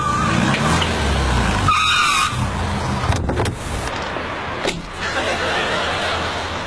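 A car running, with short wavering tyre squeals near the start and about two seconds in, then a few sharp clicks.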